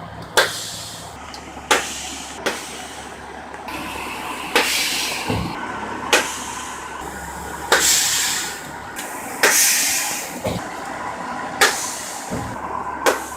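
School bus air parking brake being set and released again and again: about eight sharp pops of air, several followed by a brief hiss of escaping air, over the bus engine idling.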